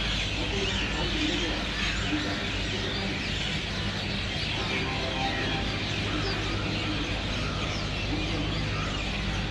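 Many small birds chirping in a busy, continuous chorus over a steady low hum.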